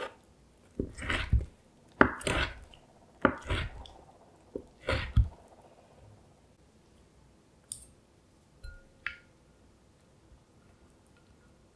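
Kitchen knife chopping syrup-candied orange slices on a bamboo cutting board, about six separate cuts over the first five seconds. A few faint light clicks follow later.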